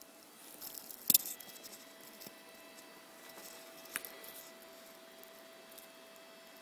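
Light rustling and handling noise in a quiet small room, with one sharp click about a second in and a smaller tick near four seconds, over a faint steady hum.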